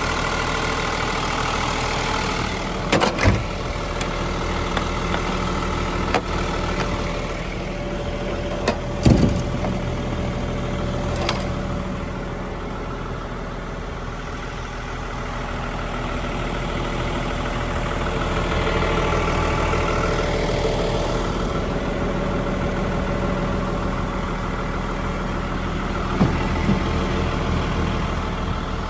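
Volvo EW180C wheeled excavator's diesel engine running steadily, easing down slightly and then swelling again through the middle. Sharp knocks sound over it: a pair about 3 seconds in, another pair about 9 seconds in, one about 11 seconds in and more near the end.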